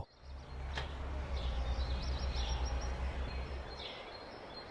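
Birds chirping over outdoor ambience, with a low cartoon engine rumble that fades out about four seconds in as Scoop the excavator drives off.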